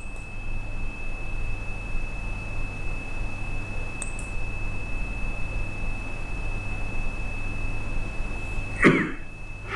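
Steady high-pitched electrical whine with a low mains hum and faint hiss underneath, the background noise of the lecture's recording, with a faint click about four seconds in.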